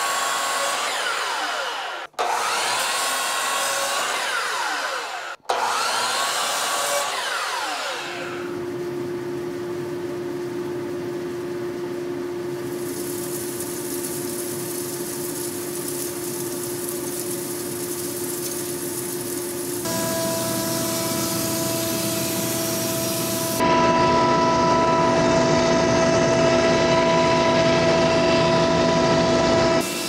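Woodworking power saw cutting poplar boards down to rough width. The first several seconds come in short stretches broken by abrupt cuts, with the pitch sliding as the saw loads and unloads. After that a steady machine drone with a constant hum takes over and grows louder about two-thirds of the way through.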